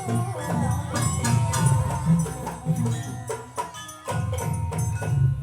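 Live jaranan music from a traditional East Javanese percussion ensemble: drums and struck percussion playing a fast, dense rhythm. The playing stops near the end and the sound dies away.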